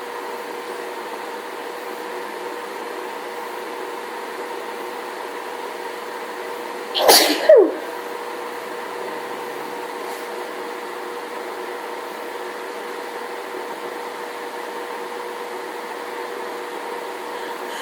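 A woman sneezes once, about seven seconds in: a sharp two-part sneeze whose second part falls in pitch, brought on by a hay fever allergy fit. It sits over a steady background hum.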